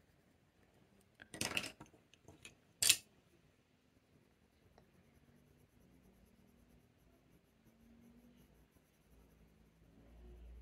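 Coloured pencils clicking against each other and on the desk as they are handled: a brief clatter of light clicks about a second and a half in, then one sharp click about three seconds in.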